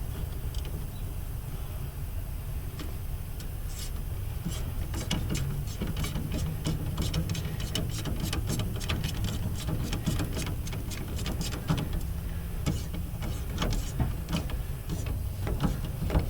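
A hand ratchet clicking in quick, uneven runs as a nut on the steering linkage is worked down. The clicking starts about four seconds in and goes on, over a steady low hum.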